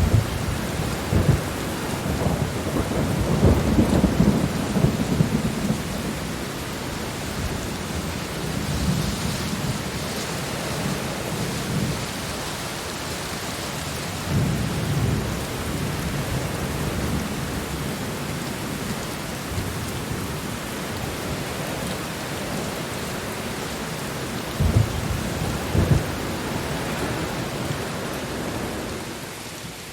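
Steady heavy rain with thunder: a long low rumble in the first few seconds, another shorter one around the middle, and two sharp thunder claps close together near the end.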